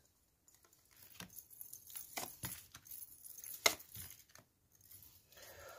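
Tarot cards being handled and laid down on a cloth-covered table: a quiet run of short taps and flicks starting about a second in.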